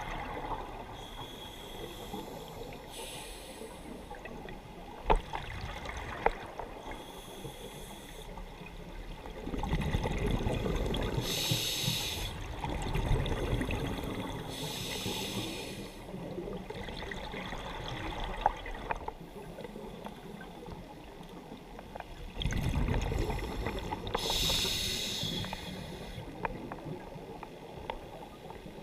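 Scuba diver breathing through a regulator underwater: short hissing breaths in and longer bubbling breaths out, a few seconds apart, with several sharp clicks.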